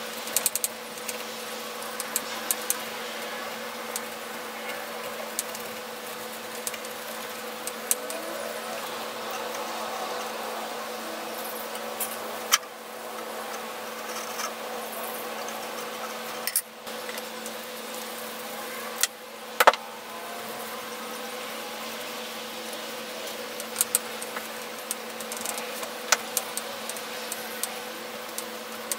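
Cloth rubbing and scrubbing over the metal housing and chain drive of an old belt sander, with scattered sharp clicks and knocks of parts being handled, the loudest about 12, 16 and 19 seconds in. A steady low hum runs underneath.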